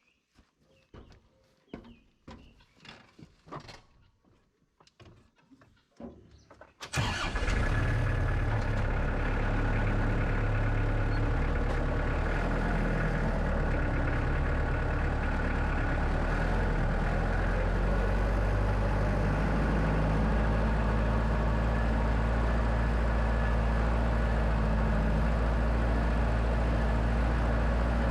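Scattered knocks and steps, then an engine starts about seven seconds in and settles into a steady idle.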